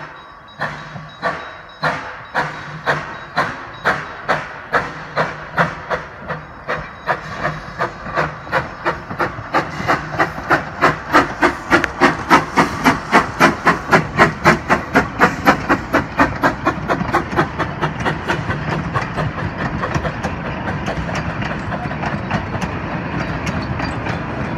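NA class 2-6-2 tank steam locomotive No. 6, built in 1901, pulling away from a standstill and passing close by. Its exhaust chuffs start at about one and a half a second and quicken to three or four a second, loudest as the engine goes past about halfway through. Near the end the chuffs fade into the steady rumble and clatter of the narrow-gauge carriages rolling past.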